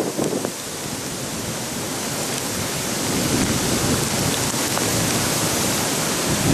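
Steady rain and wind noise, with wind gusts buffeting the microphone.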